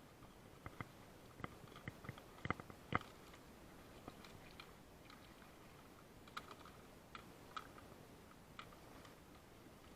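Irregular light clicks and knocks of objects being handled, with two sharper knocks about two and a half and three seconds in and a few more scattered later.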